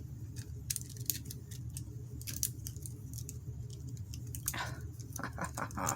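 Light scattered clicks and taps of small items being handled, busier near the end, over a low steady hum.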